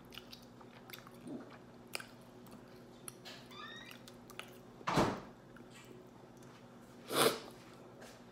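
Fingers picking apart and cracking a boiled blue crab's shell, with small clicks and cracks and chewing. Two louder, longer bursts come about five and seven seconds in.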